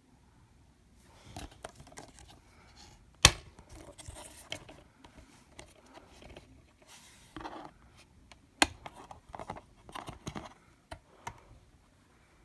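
Plastic DVD case being handled: it snaps open with a sharp loud click about three seconds in, rustles and scrapes as it is turned, and snaps shut with a second sharp click about two-thirds of the way through.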